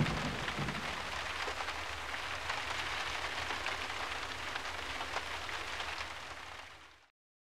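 Dense crackling hiss like heavy rain, following the tail of a low rumble in the first second, that slowly weakens and fades out to silence about seven seconds in.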